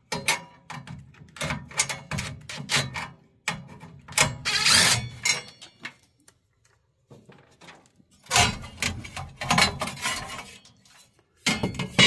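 Cordless drill-driver running in short bursts, amid metal clicks and clatter, as screws are driven into a gas furnace's sheet-metal burner area to mount a new igniter.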